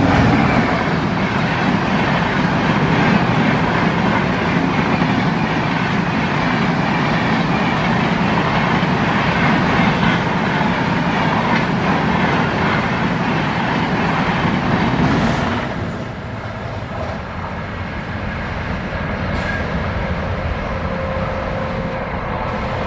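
Electric locomotive-hauled express train passing close at speed: a loud, steady rush and rumble of wheels on rail, with clickety-clack from the coaches. About two-thirds of the way through the sound drops away abruptly, and the quieter, slowly building rumble of another electric-hauled train approaching takes over.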